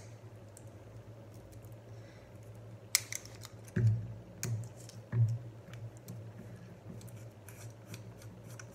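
Hands tearing and peeling the foil wrap off the top of a champagne-style plastic bottle: scattered small clicks and crinkles, a sharp click about three seconds in, then three dull thumps from handling the bottle over the next second and a half.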